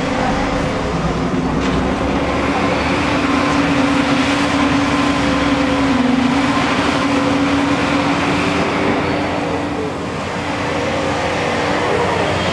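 Diesel engine of a JCB tracked excavator running steadily under load as the machine swings and works its boom and bucket, a constant drone with a humming tone that dips briefly about ten seconds in.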